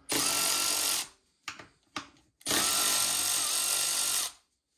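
Milwaukee cordless ratchet running on a motorcycle bolt in two runs, a short one of about a second and then a longer one of about two seconds, each a steady motor whine. A few short clicks come between the runs.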